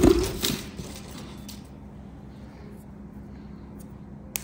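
Quiet room tone with a steady low hum, opened by a brief handling noise. Near the end comes a single sharp click as a thin glass stringer is set down on the powdered glass sheet.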